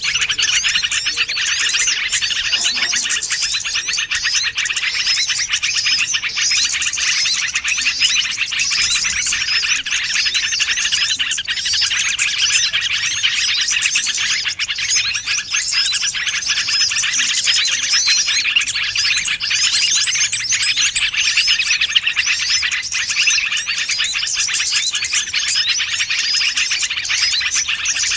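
Dense, unbroken twittering of many small songbirds, fast overlapping chirps and trills, used as a bird-lure (pikat) call to draw wild birds in.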